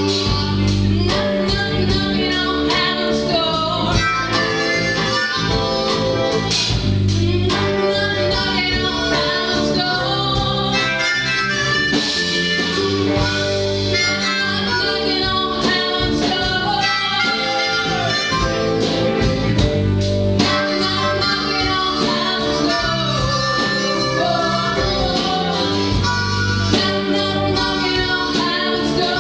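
Band music: a harmonica playing a melody with bent notes over guitar and low bass notes.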